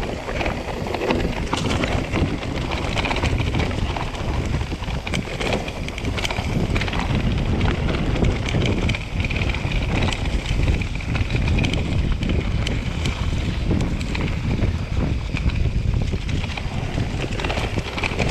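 Mountain bike riding down a dirt forest trail: wind buffeting the microphone over a low rumble of tyres on dirt, with frequent clicks and rattles from the bike over bumps.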